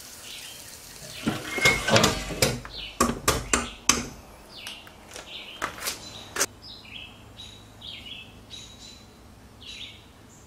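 A quick run of metal knocks and clanks from the charcoal barrel grill-smoker for the first few seconds, followed by a small bird chirping over and over.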